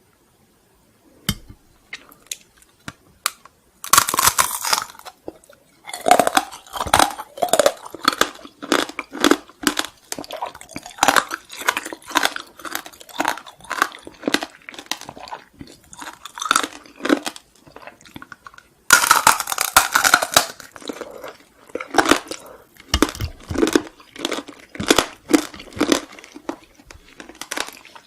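Close-miked crunchy chewing of a hard sweet. Two long, loud crunches come about four seconds in and again near twenty seconds, with steady chewing at about two chews a second between and after them.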